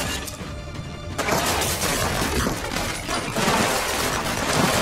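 Film action soundtrack: a sharp crack, then from about a second in a dense barrage of gunfire with bullet impacts and debris smashing and shattering, over tense score music.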